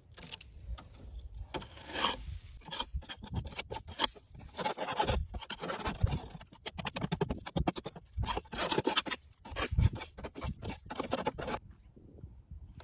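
Irregular scraping and scratching with many short rasps and knocks, as dead bees and old comb are worked over in a wooden top bar beehive; it stops about a second before the end.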